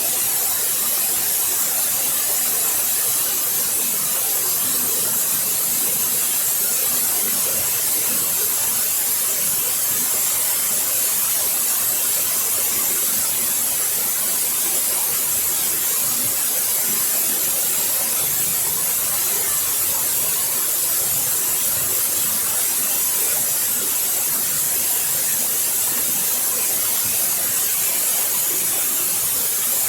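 Waterfall: water falling and splashing in a steady, unbroken rush, strongest in the hiss of the spray.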